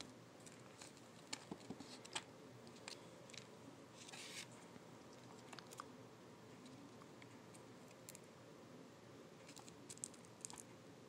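Plastic fork poking and scraping through fried rice and chicken wings in a takeout container: scattered faint clicks, a short rustle about four seconds in, and another cluster of clicks near the end, over quiet room tone.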